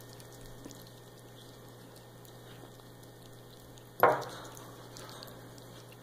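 Faint steady room hum, then a single sudden loud knock about four seconds in that dies away within half a second.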